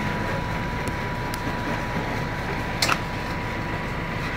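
A motor running steadily, with a thin steady whine and a short clatter about three seconds in.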